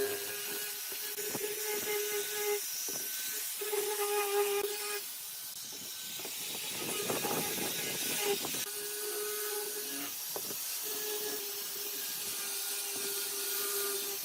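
An electric power tool working wood: a steady motor hum with a loud hiss, the hum dropping out briefly about three seconds in and again for a few seconds in the middle, when a rougher scraping noise with clicks takes over.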